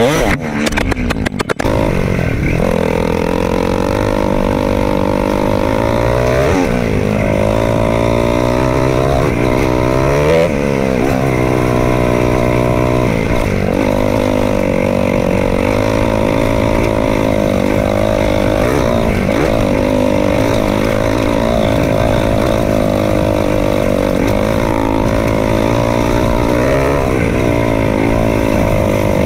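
KTM 500 EXC-F dirt bike's single-cylinder four-stroke engine running as the bike is ridden, its revs rising and falling with the throttle. There is a brief choppy dropout about a second in.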